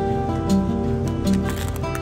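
Background music: an acoustic guitar tune with plucked notes.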